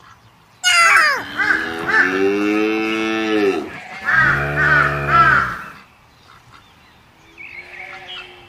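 Animal sound effects: a cow mooing twice in long, falling calls, overlaid by quick runs of crow caws about every half second. A faint, short call follows near the end.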